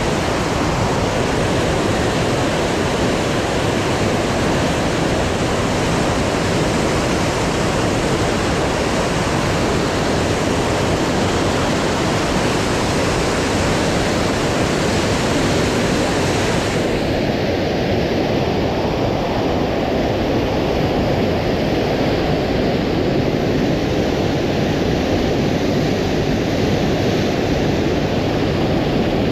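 Steady, loud rush of a mountain river in flood, brown water tumbling over rocks in rapids. A little past halfway the sound turns duller as its high hiss drops away.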